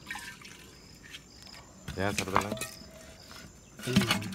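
Crickets chirping in short, regular calls, with a brief voice about two seconds in. Near the end there is a sharp knock and clatter as the clay sap-collecting pot is handled in the palm.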